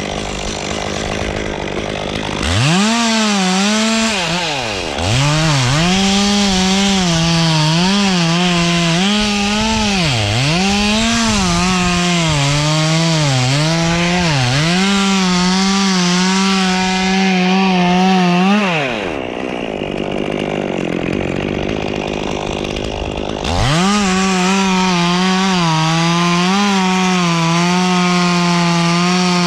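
Chainsaw cutting into Canary Island pine. It is throttled up about two seconds in, and its pitch dips again and again as the chain bites the wood. It drops back to idle for a few seconds about two-thirds through, then is revved up and cutting again.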